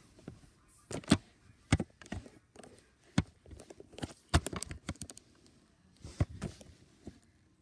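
Mechanical keyboard keys struck hard and slowly in a hunt-and-peck rhythm: loud, irregular clacks with pauses between them, and a quicker run of several about four seconds in.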